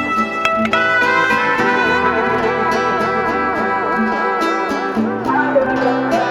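Background music: an upbeat instrumental track with plucked guitar and a steady beat.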